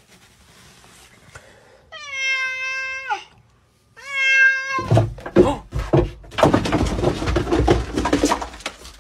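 A domestic cat meowing: one long meow about two seconds in and a shorter one about four seconds in, each holding one pitch and dropping at the end. Loud rustling and knocking follow for the rest.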